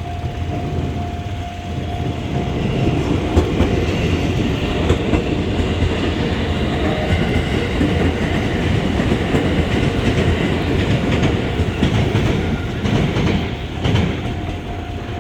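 Electric train passing over a level crossing, its wheels clicking over the rail joints in a rumble that builds about two seconds in and eases near the end. A steady level-crossing alarm tone sounds under it, clearest at the start and end.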